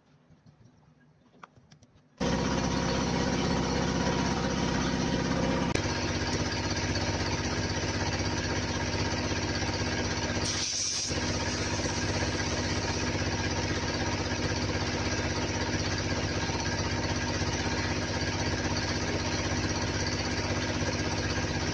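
Air compressor running steadily while a truck tire is inflated through an air hose. It starts abruptly about two seconds in, and near the middle there is a brief dip with a short hiss.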